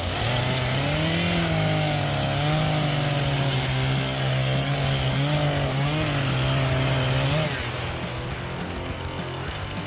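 Chainsaw engine running under load while cutting wood, its pitch wavering up and down as the chain bites. It drops off about seven and a half seconds in.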